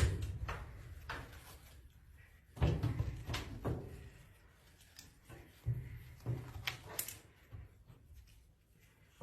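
Irregular knocks and thuds of something being bumped or banged, in three clusters: at the very start, around three seconds in, and around six to seven seconds in.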